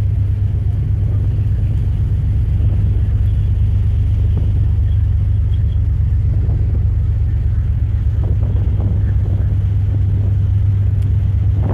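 Steady low drone of a high-speed ferry's engines under way at speed, with no change in pitch or level.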